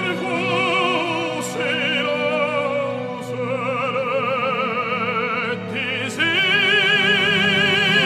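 Operatic tenor singing held notes with a wide vibrato over sustained orchestral accompaniment; the voice and orchestra swell louder about six seconds in.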